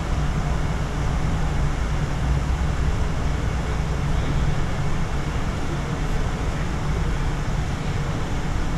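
Cabletren Bolivariano, a Doppelmayr cable-hauled people mover, running along its elevated guideway, heard from inside the car: a steady low rumble with an even hiss above it.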